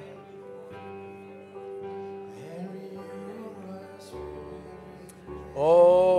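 Soft worship music: sustained keyboard chords with quiet singing. A much louder voice, calling out with a wavering pitch, comes in near the end.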